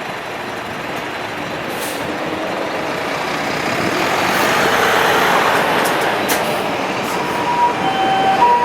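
Heavy vehicle noise from the ambulance, engine and tyres, swelling to a peak and easing a little. Near the end its harmonic siren starts the Japanese ambulance hi-lo call, two steady tones alternating.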